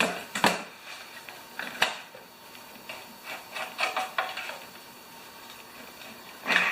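Metal hand tools clinking as a socket and ratchet are picked up and handled: a few sharp separate clicks near the start, then a quick run of clicks a little past the middle.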